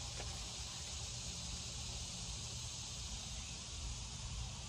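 Steady background hiss with a low rumble underneath, unchanging throughout; no distinct sound event stands out.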